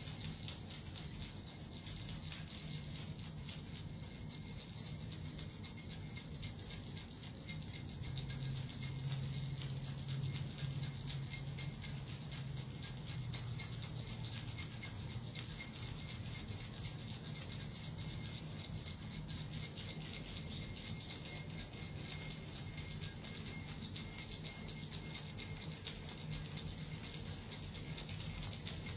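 Small jingle bells (suzu), with a metal rattle, shaken continuously in a dense, even shimmer of high ringing.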